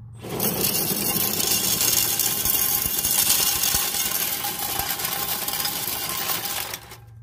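Axial SMT10 Grave Digger RC monster truck dragging a 14-pound pull sled across gravel, with loud, steady grinding and crunching from its tires and the sled's skid. The sound cuts off suddenly near the end as the truck stops after a full pull.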